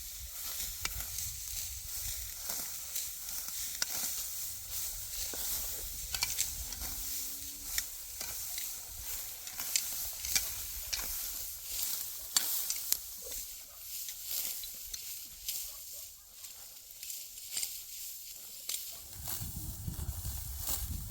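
Steady sizzling hiss with frequent sharp crackles and pops, as food fries.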